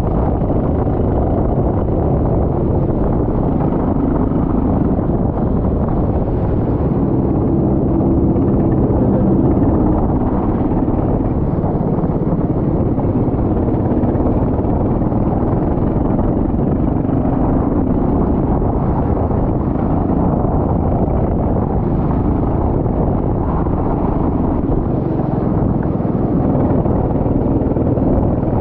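Go-kart engine running on track, a steady low-pitched drone with its pitch shifting slightly as the throttle changes.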